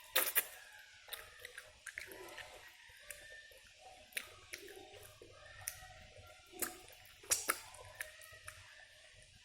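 Close-up mouth sounds of eating chicken in sweet soy sauce: wet chewing with sharp smacks and clicks at irregular intervals, the loudest right at the start.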